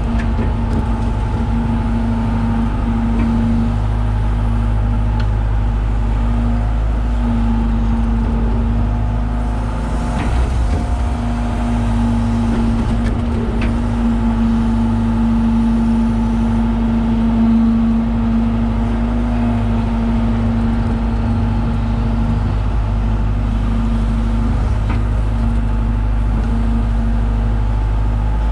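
John Deere 190E excavator's diesel engine running steadily while digging. The drone's tone dips now and then, and there are a few brief knocks about ten and thirteen seconds in.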